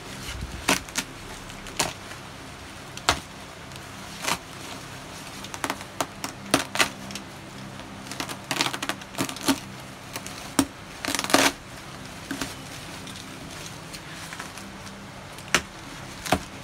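Woven plastic wrapping being slit with a box cutter and torn open by hand: irregular sharp rips and crackles, with a couple of longer tearing sounds around the middle, over a faint steady low hum.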